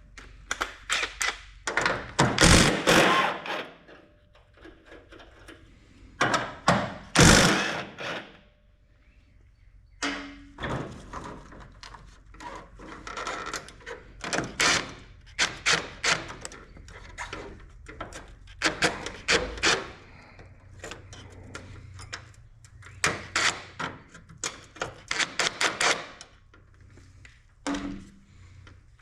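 Hand tools working on a first-generation Dodge truck's hood latch as its mounting bolts are taken out: metal clicks and knocks. There is a cluster of loud knocks in the first few seconds and again around seven seconds in, then many lighter, quick clicks.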